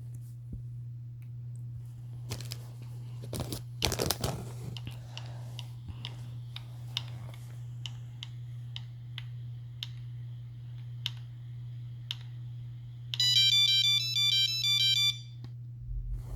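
A Nokia phone plays a short melody of stepped beeping notes for about two seconds near the end: an iPhone ringtone rebuilt as a Nokia ringtone. Before it come a few handling knocks and a run of keypad clicks about once a second, over a steady low electrical hum.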